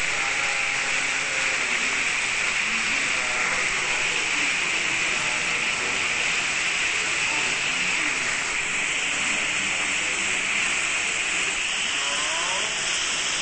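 Waterfall pouring down a rock face and splashing onto stone: a steady, unbroken rush of falling water.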